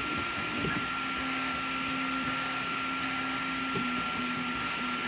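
FlashForge Adventurer 5M 3D printer running a print: its fans make a steady whir with a thin high tone, under the low hum of its stepper motors, which breaks up near the end as the moves change.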